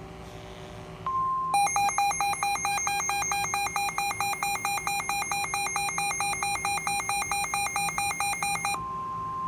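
Weather radio sounding a tornado warning alert. About a second in, the steady National Weather Service warning alarm tone starts, and it is quickly drowned out by the receiver's loud, rapidly pulsing electronic alarm beep, which lasts about seven seconds. The steady alarm tone comes back near the end.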